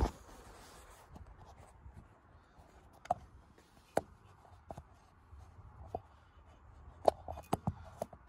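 Phone handling noise as the phone is propped into place: about ten scattered light taps and clicks with faint rubbing between them.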